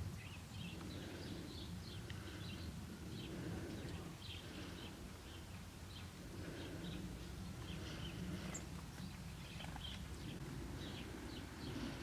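Faint, scattered high chirps of birds over a steady low rumble.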